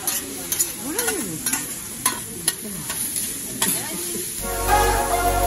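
Fried rice sizzling on a steel hibachi griddle while metal spatulas clack and scrape on the plate about twice a second. Music with a heavy bass comes in near the end.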